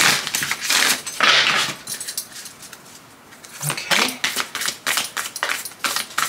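A deck of moon oracle cards being shuffled by hand. A dense rush of shuffling noise in the first two seconds, a short lull, then from about halfway a quick run of sharp card slaps and flicks, about four or five a second, as cards pass from hand to hand.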